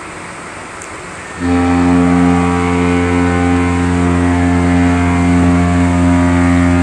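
Cruise ship's horn sounding one long, deep, steady blast that starts about a second and a half in and lasts about five seconds.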